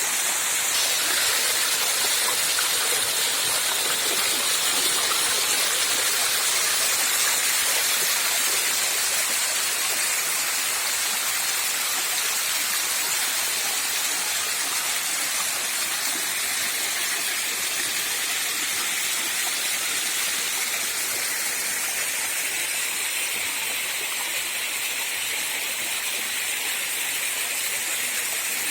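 Steady rushing of rain-fed running water.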